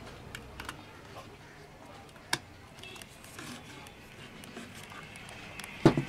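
Small clicks and taps of cable connectors and wires being handled while the panel-board cable is plugged into the speaker box's circuit board, with one sharper click about two seconds in and a louder knock near the end.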